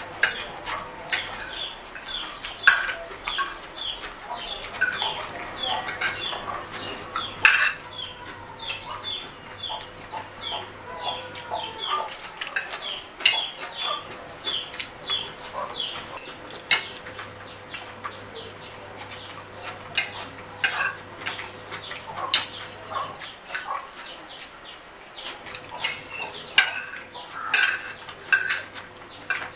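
Fork clinking and scraping on a ceramic plate, with close-up chewing and lip-smacking mouth sounds of someone eating spaghetti. A faint steady hum sits underneath.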